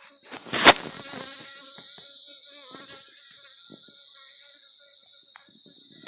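Honeybees buzzing close around the microphone, a faint wavering drone over a steady high-pitched insect chorus. A single sharp knock a little under a second in.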